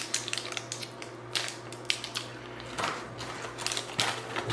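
Plastic fruit-snack pouch crinkling as it is torn open and handled, in quick irregular crackles and clicks.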